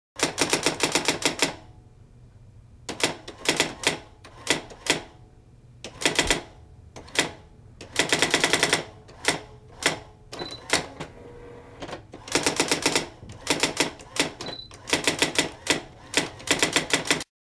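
Typewriter keystroke sound effect: runs of fast key clacks in bursts with short pauses between them, stopping shortly before the end.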